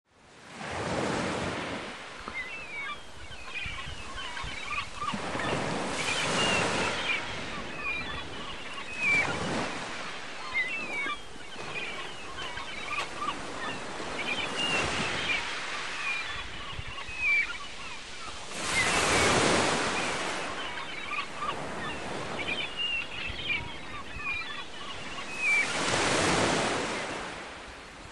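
Surf washing onto a beach in swells that rise and fall every few seconds, with birds chirping throughout.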